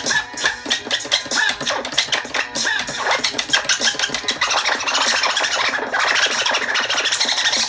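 DJ scratching a record over a music track: short, quick back-and-forth scratch sweeps repeating over the beat, getting denser and busier about halfway through.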